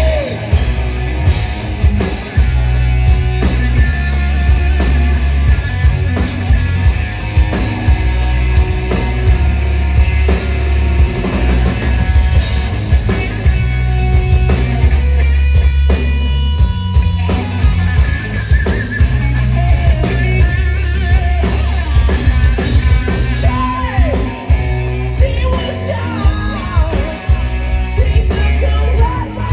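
Live rock band playing a slow, bluesy ballad loudly: electric guitar, bass and drums, with a voice singing at times.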